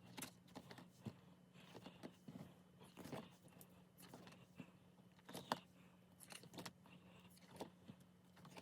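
Faint handling noise of a paper calendar being paged through: scattered soft taps and rustles of pages, over a low steady hum.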